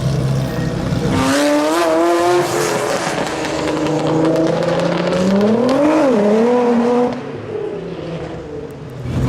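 A Ferrari F40's twin-turbo V8 with a catless Tubi exhaust accelerating hard: the engine note climbs, drops sharply about six seconds in, then climbs again. About a second later it gets quieter and the note falls away. Sharp exhaust crackles pop throughout the loud part.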